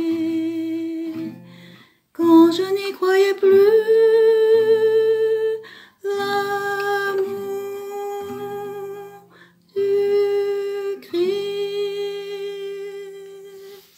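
The closing phrases of a French hymn: a singer holds long notes with vibrato over plucked acoustic guitar, in four phrases with short breaks between them, fading out near the end.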